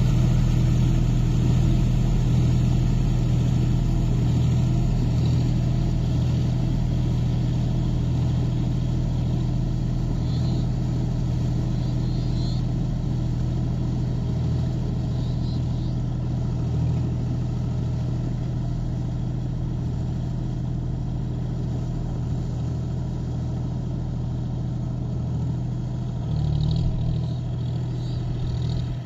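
John Deere 4WD tractor's diesel engine running steadily under load as it drives a 6.5-foot rotavator through a flooded field, slowly growing fainter as the tractor moves away.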